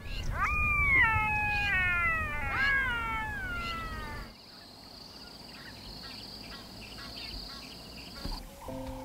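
A series of about six loud, pitched animal calls in quick succession, each swooping up and then sliding down in pitch. After a sudden change about four seconds in, a steady high insect drone takes over and stops shortly before the end.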